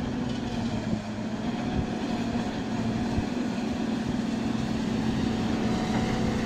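Steady machine running noise with a constant low hum.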